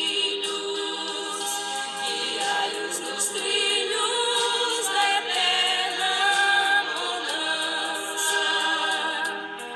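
Background music: a choir singing slow, held notes.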